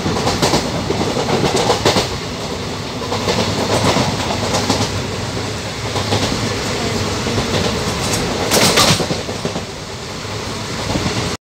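Passenger train running at speed, heard from inside the carriage at an open barred window: a steady rumble and rush with the clickety-clack of wheels over rail joints, with a louder clatter toward the end.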